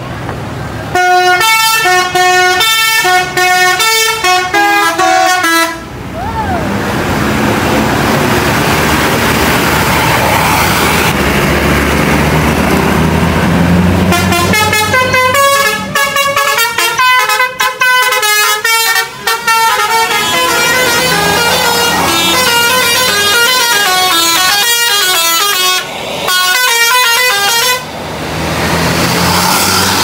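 Indonesian tour buses' telolet basuri horns playing quick multi-note tunes, the notes stepping up and down in several bursts. A bus diesel engine rumbles between the bursts, loudest in the stretch from about 6 to 14 seconds.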